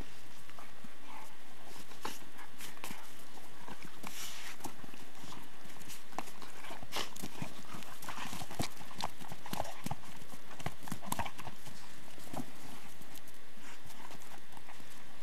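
A dog scuffling and crunching through snow while it paws, mouths and shoves a hard plastic Jolly Ball, giving irregular knocks and crunches.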